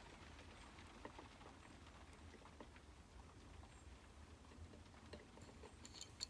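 Near silence: a low hum with faint, scattered small clicks of lockpicking tools working inside a Union D-Tec euro cylinder's pins and sidebar, with a few sharper clicks near the end.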